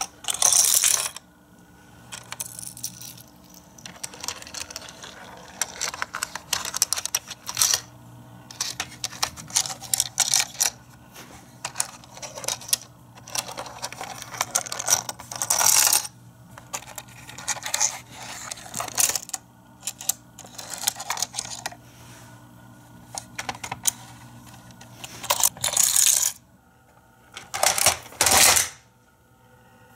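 Hard plastic clicks, clacks and rattles of a Galoob Micro Machines Double Takes Boomtown playset being handled, its hinged sections and small pieces knocking together. The clatter comes irregularly, with louder bursts near the start, midway and near the end.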